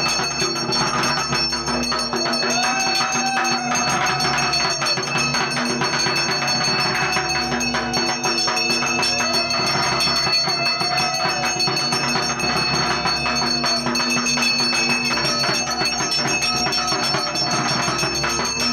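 Hand bell rung continuously in puja worship, a steady high ringing with fast clatter, over a tone that rises and falls about every two seconds.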